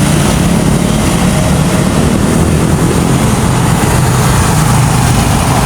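A moving vehicle's engine and road and wind noise: a steady low engine hum under a constant loud hiss.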